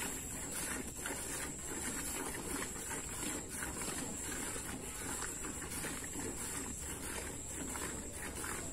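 Hand-milking a cow into a steel bucket: rhythmic squirts of milk hitting the pail, about two a second, over a steady high whine.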